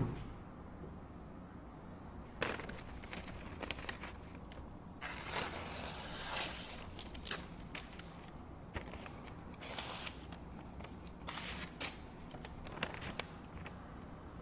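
Newspaper being handled and cut on a freshly sharpened knife edge: several crisp slicing and rustling bursts of paper at uneven intervals, the longest about five seconds in.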